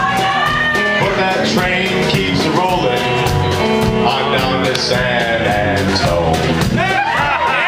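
Live rock band playing: electric guitars, bass guitar and drum kit keeping a steady beat, with held notes over it.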